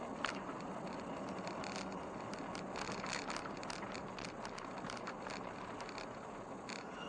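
Vehicle driving along a rural road: steady road and tyre noise with scattered small clicks and rattles.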